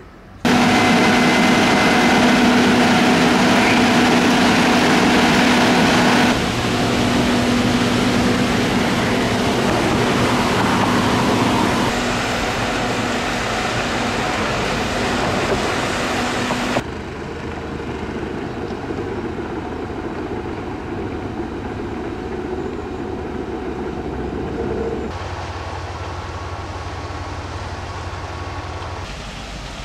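Yellow railway track-maintenance machines running, a loud steady engine hum mixed with mechanical working noise, then an SBB diesel locomotive's engine drone. The sound changes abruptly several times and grows quieter toward the end.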